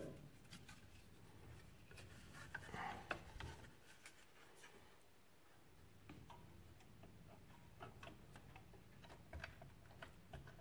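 Faint, scattered clicks and taps of hands handling a graphics card and parts inside a PC case.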